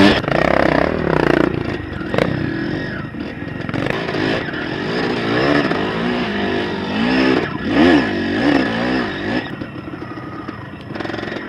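Dirt bike engine being ridden hard on a trail, revving up and down over and over as the throttle is opened and closed, with a rattle of the bike over rough ground.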